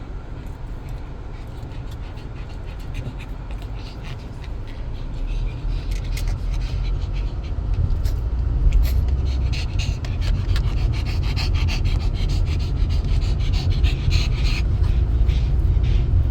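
Dog panting over a steady low rumble that grows louder about a third of the way in.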